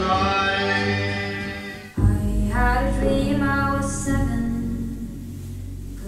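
Stage music with singing. About two seconds in it cuts abruptly to a different piece: a sung melody over a deep, steady bass.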